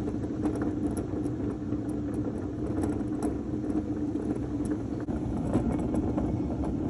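Honda Dio scooter running with its wheel turning: a steady drone with irregular clicks and rattles throughout, the noise of a bad wheel bearing.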